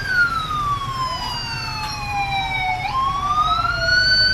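Toy police car's electronic siren wailing, its pitch sliding slowly up and down, with a second wail overlapping it from about a second in.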